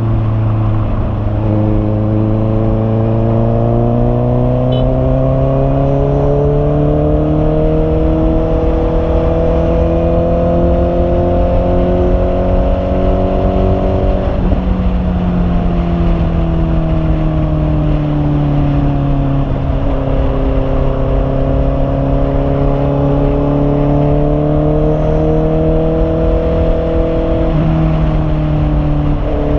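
Honda CB650R's inline-four engine running steadily and loudly. Its pitch climbs slowly for long stretches, then steps down or up sharply a few times, about halfway through and near the end.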